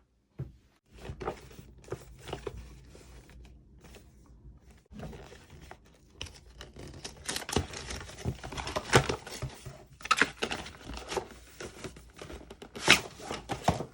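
Packaging of a GoPro Hero 9 box being torn and crinkled open, with irregular scratches, crackles and sharp clicks of handling that grow busier and louder in the second half.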